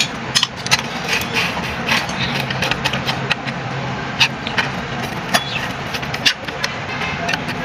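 Irregular metallic clicks and clinks of a socket wrench working the bolts of a diesel engine's back cover, over a steady engine hum in the background.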